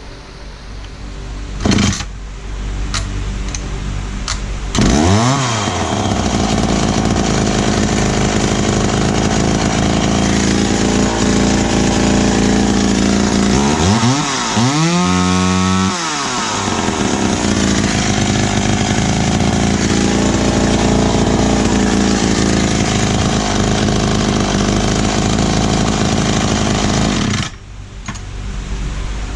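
McCulloch Mac 120 two-stroke chainsaw engine running on its rebuilt carburettor, after a sharp knock about two seconds in. It is revved briefly about five seconds in and again, harder, at around fifteen seconds, runs steadily in between and after, and drops away suddenly near the end.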